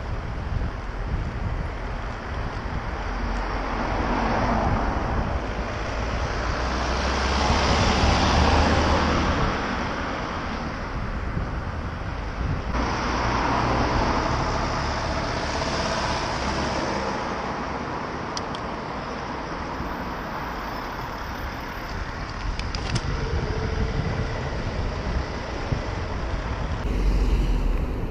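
Road traffic: cars passing close by, the noise swelling and fading as each goes past, with two loud passes in the first half. The sound changes abruptly twice.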